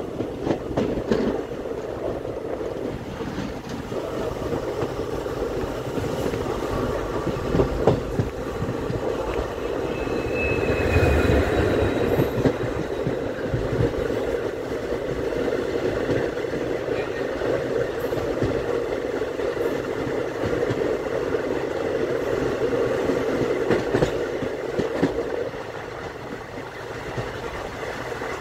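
Two passenger trains crossing at speed, heard from an open coach door: the oncoming train's locomotive and coaches rush past close alongside in a steady roar, with the wheels clicking and clattering over rail joints. It is louder for a few seconds just before the middle and eases slightly near the end.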